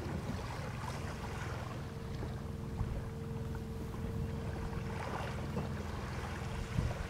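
Small crab boat's outboard motor idling steadily, a low rumble with a held hum, while wind buffets the microphone. A few faint knocks, one louder near the end.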